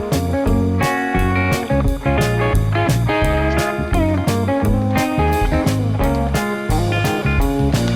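Background music: blues-style electric guitar over a steady drum beat, with bending guitar notes.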